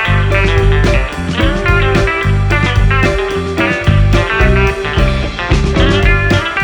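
Background music: an instrumental stretch with plucked guitar over a steady beat with heavy bass.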